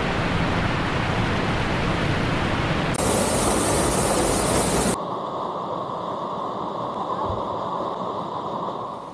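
Steady rushing of a waterfall, cutting abruptly to a brighter rush about three seconds in and to a quieter, thinner rush about five seconds in.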